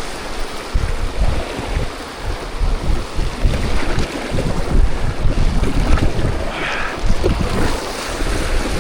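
Rushing whitewater river water around a raft, with wind buffeting the microphone in uneven low rumbles.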